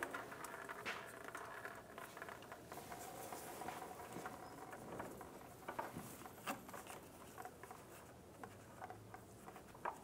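Faint, irregular patter and small clicks as engine oil drips from a loosened spin-on oil filter into a drain bucket, while a gloved hand turns the filter off.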